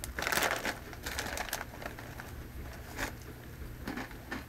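Foil-lined Takis chip bag crinkling as it is handled, in a few short bursts, the loudest right at the start.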